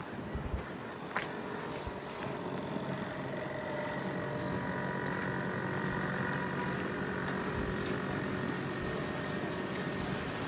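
A motor vehicle's engine running with a steady hum over street noise, growing a little louder about four seconds in; a sharp click sounds about a second in.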